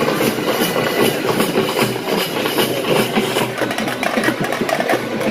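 A motor vehicle's engine running steadily, at a steady, even loudness throughout.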